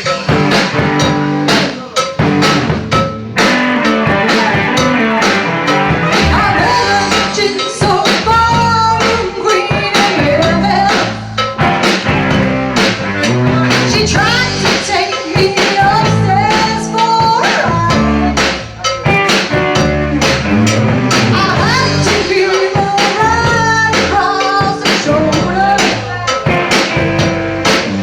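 Live rock band playing a blues-rock song: a drum kit keeps a steady beat under an electric guitar riff with bent notes.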